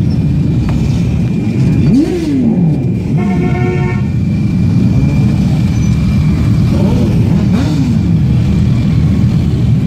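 Motorcycle and car engines passing slowly one after another, a steady low rumble with a quick rev that rises and falls about two seconds in and again later. A vehicle horn sounds briefly about three seconds in.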